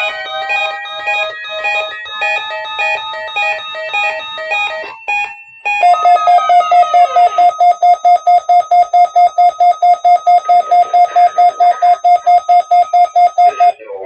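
Weather radio receivers sounding their electronic alert beeps for the weekly test: several overlapping beep patterns with some gliding tones, a short break about five seconds in, then one loud beep pulsing about four times a second that cuts off just before the end.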